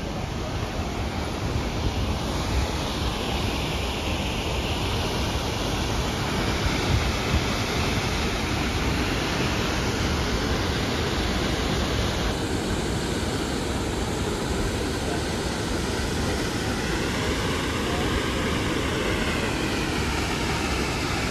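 Crescent Falls on the Bighorn River: the waterfall's steady rush of falling water, loud and unbroken.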